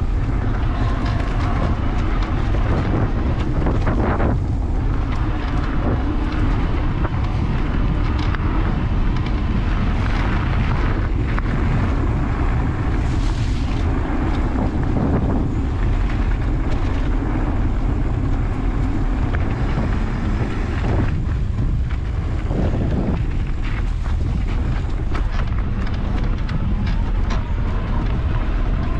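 Mountain bike riding over a dirt trail: steady wind noise on the microphone over the rolling of knobby tyres, with frequent clicks and rattles from bumps.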